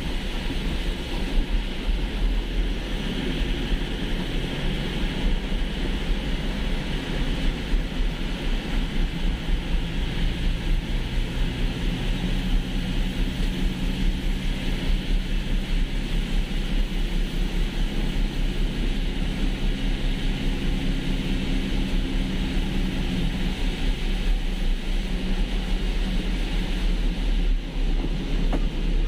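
Inside a vehicle driving on a rain-soaked road: a steady engine hum over a constant rushing hiss of tyres and rain, with a strong low rumble. The engine note changes about 23 seconds in.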